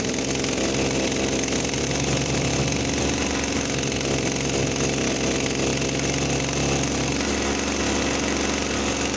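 Firman petrol hedge trimmer's small engine running steadily, driving its long double-sided cutter bar back and forth.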